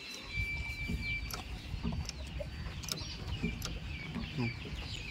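Chickens clucking in short scattered notes, with small birds chirping high and thin over a low background rumble.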